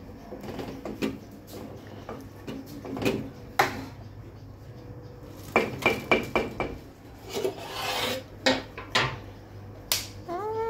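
Wooden spoon stirring, scraping and knocking against an aluminium cooking pot of thick bean stew, with scattered taps and a louder run of knocks midway. A cat meows briefly near the end.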